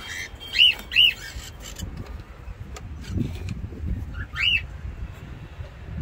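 Cockatiel calling: two short whistled calls, each rising then falling, in quick succession under a second in, and a third similar call about four and a half seconds in, over a low steady background rumble.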